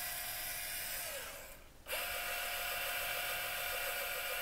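Electric motor whine from the Talaria XXX's motor spinning the lifted rear wheel while the new controller calibrates its position sensors. The whine drops in pitch and dies away about a second and a half in, then a steady whine starts again abruptly near two seconds.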